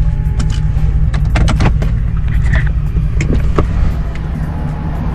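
Chevy truck engine running with a steady low rumble, heard from inside the cab, with a few sharp clicks and knocks about a second in and again past the middle.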